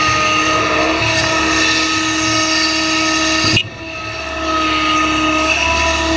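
Excavator's diesel engine running under load with a steady hydraulic whine as the full bucket swings over the dump truck and dumps its dirt. The sound drops out sharply for a moment about three and a half seconds in, then comes back.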